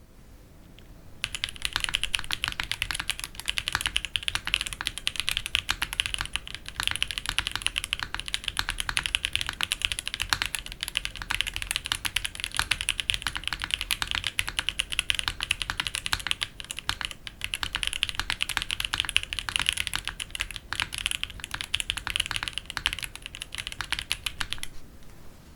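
Fast, continuous typing on a polycarbonate Mode Envoy mechanical keyboard with WS Stellar Bluerose linear switches and Drop Sapphire keycaps: a dense stream of clean keystroke clacks. It starts about a second in and stops about a second before the end.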